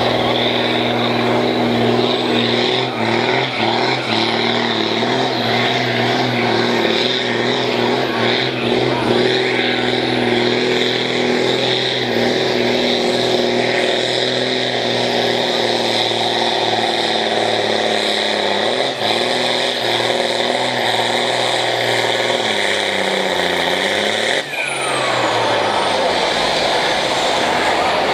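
John Deere farm tractor's diesel engine running hard under full load, pulling a weight sled and pouring black smoke. Near the end the engine note sags lower as it labours, then breaks off suddenly at about 24 seconds, followed by a falling whine.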